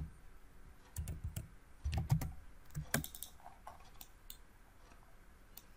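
Quiet computer keyboard keystrokes and mouse clicks, scattered singly and in small clusters, as a value is typed into SketchUp and the model is clicked and orbited.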